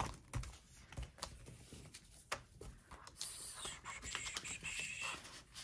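Faint handling of paper planner supplies and sticker sheets: a few soft taps and clicks, then about two seconds of scratchy rustling around three seconds in.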